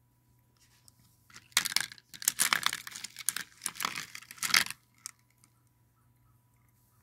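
Glass marbles clacking against each other as a hand stirs through a plastic basket full of them: a dense run of clicks lasting about three seconds from a second and a half in, then one more click.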